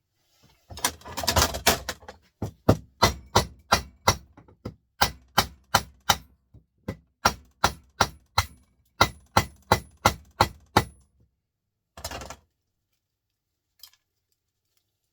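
Hammer blows on metal scrap, a long run of sharp knocks about three a second, breaking apart a small part to get at its copper. A rough scraping rustle comes before the blows, and a short clatter follows them.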